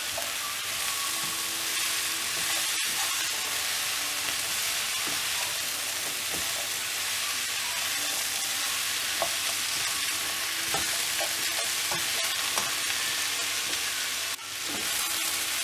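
Diced carrots, potatoes and broccoli sizzling in hot oil and masala in a non-stick pan as a wooden spatula stirs and turns them. There is a steady frying hiss with small scrapes and ticks from the stirring.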